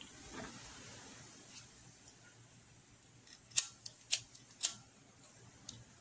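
Small scissors snipping crochet thread ends: a few sharp clicks in quick succession about three and a half to five seconds in, and one more near the end. A soft rustle of handled yarn comes first.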